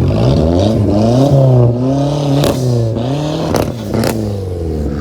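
Car engine with a loud modified exhaust being revved up and down repeatedly, with a few sharp exhaust pops.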